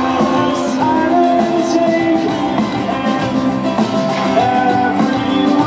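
Live rock song: a man singing over a strummed acoustic guitar, backed by a band with drums and cymbals.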